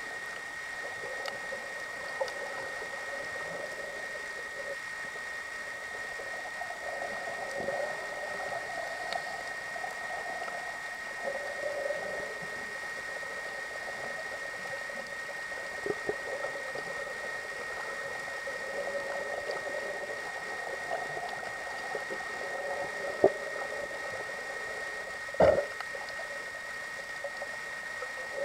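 Muffled underwater ambience picked up by an underwater camera: a steady high whine under a low wavering hum, with faint scattered clicks and two sharp knocks a couple of seconds apart near the end.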